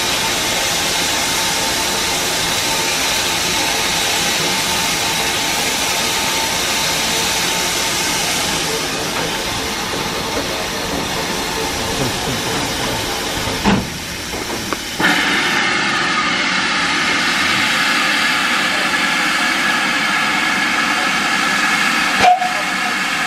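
Steam locomotive standing and hissing steam steadily and loudly. About two-thirds of the way through there is a knock, the hiss drops away for a second or so, then resumes with a slightly different tone.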